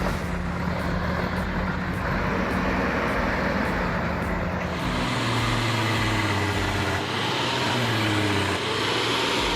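Heavy truck engine running steadily. About five seconds in, its note steps down lower and a hiss rises above it.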